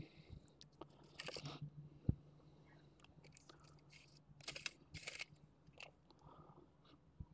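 Faint scattered clicks, scrapes and rustles of tools and metal parts being handled, with one sharper knock about two seconds in, over a faint low steady hum.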